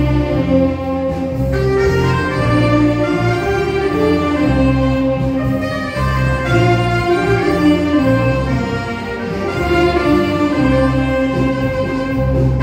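Instrumental music from a band, a sustained melody over a steady low bass accompaniment.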